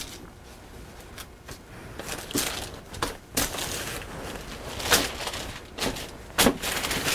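Parchment paper rustling and crinkling as it is slid and rearranged on a metal sheet pan under a loaf of dough, with several sharper crackles.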